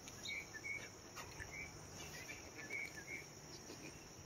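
Steady high-pitched insect drone, like crickets, with short bird chirps repeating every half second or so.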